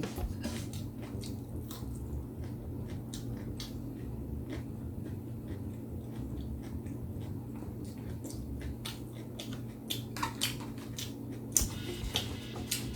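Close-miked chewing and biting: a steady run of small wet clicks and soft crunches from a mouth eating fast food, with a louder cluster of clicks and smacks near the end.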